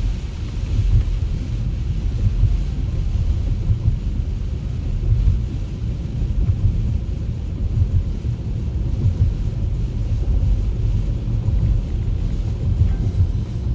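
Steady low rumble of a car driving at highway speed, heard from inside the cabin: road and engine noise, with a faint hiss over it.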